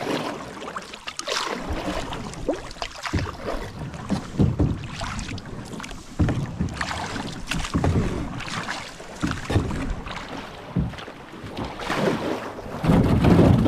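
Canoe ramming through thin lake ice: the ice cracks and crunches in irregular bursts as it breaks and scrapes along the hull.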